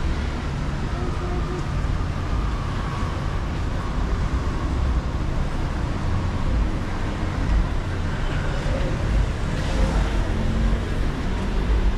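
Busy city street traffic: a steady low rumble of passing vehicles.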